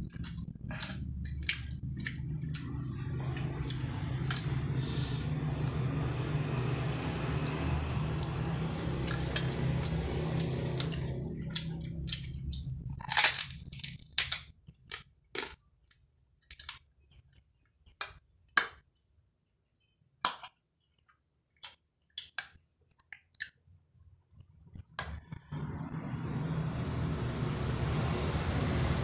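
A person eating fried noodles with kerupuk crackers: scattered short, sharp crunches and clicks of chewing and cutlery on a plate. Beneath them runs a steady low hum that drops out for a stretch in the middle and comes back near the end.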